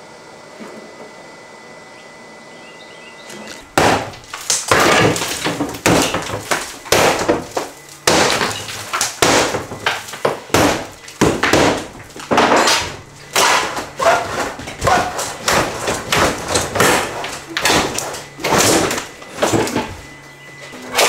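Kitchen cabinets being ripped out by hand: after a steady hum, a rapid, irregular run of loud bangs, cracks and breaking wood starts about four seconds in and keeps going.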